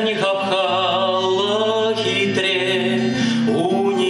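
A man singing long held notes with a slight waver, accompanying himself on a steel-string acoustic guitar.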